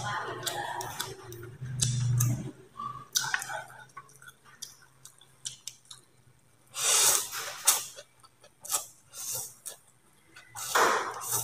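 A person slurping rice vermicelli noodles, with two long, loud slurps about seven and eleven seconds in and smaller chewing and mouth sounds between. A low hum sounds during the first two seconds or so.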